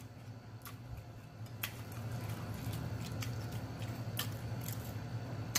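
Close-miked chewing of a sushi roll, with scattered wet mouth clicks and smacks, over a steady low hum.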